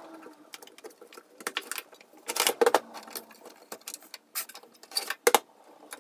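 Irregular plastic and metal clicks, knocks and rattles as drives and their cables are worked loose from the drive cage of a Compaq Presario 6000 desktop case. The loudest clusters come about halfway through and again near the end.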